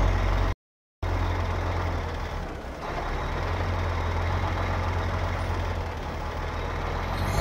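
Heavy truck running, a steady low engine and drivetrain rumble heard from underneath beside the spinning driveshaft. The sound cuts out completely for about half a second near the start.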